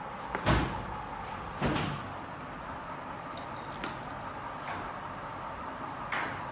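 Knocks and clatters of knives, bowls and a cutting board being set down on a stainless steel prep table, two louder knocks in the first two seconds and a few lighter ones after, over a steady kitchen hum.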